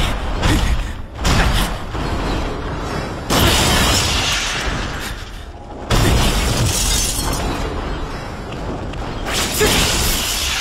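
Metal-on-metal clash sound effects from a robot fight, blade strikes throwing sparks off armor. There are about five sudden loud crashes: near the start, about a second in, at about three seconds, at about six seconds and near the end, each trailing off over a second or two.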